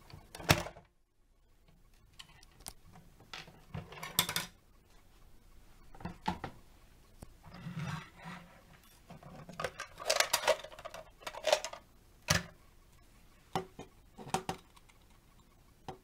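Hard plastic toy parts clicking and clattering as a vintage Thunderbird 2 toy and its pod are handled: a sharp click near the start, then scattered knocks and short scrapes of plastic on a tabletop.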